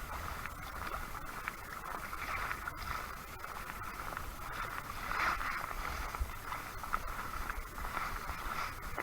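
Sit-on-top fishing kayak moving quickly through the water: a steady rush and gurgle of water along the hull that swells and fades, with small knocks and a low wind rumble on the microphone.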